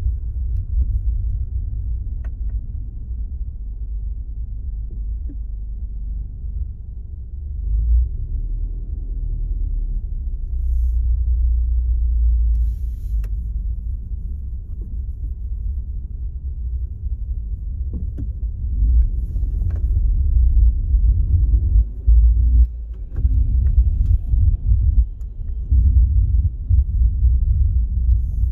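Car driving at motorway speed: a low, fluctuating rumble of road and engine noise, with a few faint clicks.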